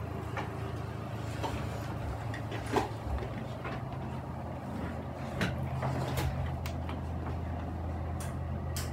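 Steady low hum with faint noise and a few scattered faint clicks and taps.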